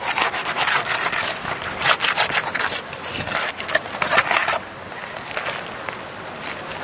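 Flat bar scraping and prying under roof shingles to pop them loose from the nails and sealant strip: a run of rough, rapid scraping strokes that stops about four and a half seconds in, leaving quieter rustling.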